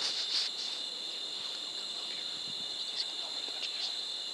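Steady high-pitched chorus of night insects, crickets trilling, with a few faint short clicks and rustles.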